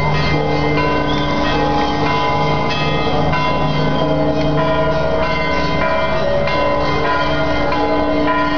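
Music with sustained, bell-like tones that change pitch every second or two.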